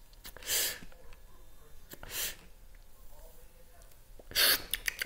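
A man puffing on a joint: short breathy draws and puffs of air, two soft ones about a second and a half apart, then a louder one near the end.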